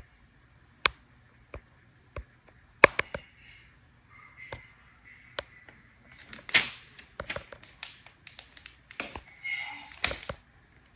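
A clear plastic transfer sheet being handled and smoothed onto cloth: scattered sharp clicks and taps, with crinkly rustles of the sheet about six seconds in and again around nine to ten seconds.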